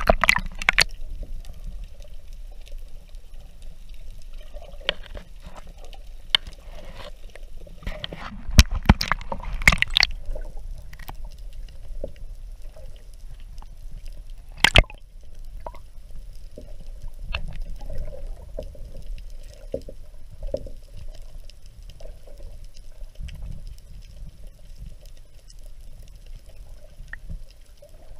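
Water heard through a GoPro held underwater: a muffled, steady sloshing and gurgling, broken by scattered sharp clicks and knocks, with a cluster about nine to ten seconds in and a single strong one around fifteen seconds.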